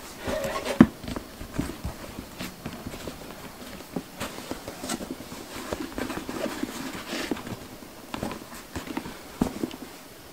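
Hand-stitching leather: a needle pushed through the leather and thread drawn through the stitch holes in short rasps, with irregular clicks and rustles as the leather bag is handled.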